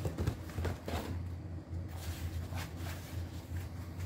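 Paper and cardboard packaging being handled: light rustling and a few small taps, over a steady low hum.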